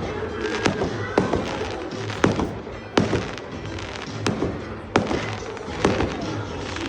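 Fireworks going off: sharp bangs about once a second over a steady crackle, with music playing underneath.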